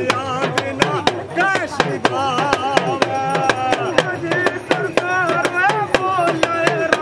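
Two damru dhol, hand-held hourglass drums, beaten with small sticks in quick, sharp strokes several times a second, with men's voices singing along over the beat.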